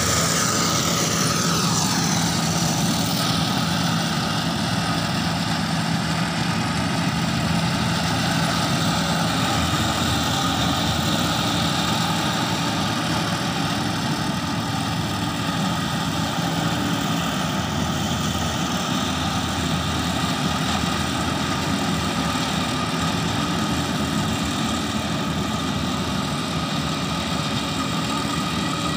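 Yanmar AG600 rice combine harvester running steadily while cutting and threshing ripe paddy: a constant engine drone with a steady mechanical whine over it.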